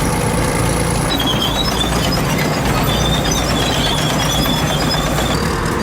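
Heavy machine running with a steady rumble and thin, broken high-pitched squeals that come and go from about a second in until near the end.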